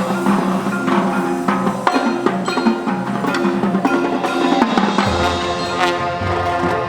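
Marching band playing, led by percussion with sharp repeated strikes over ringing pitched mallet notes; a low bass line comes in about five seconds in.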